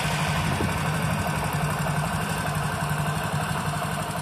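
Freshly rebuilt air-cooled single-cylinder motorcycle engine idling steadily a couple of seconds after starting. It runs smoothly with no abnormal noise after its new bore and piston work.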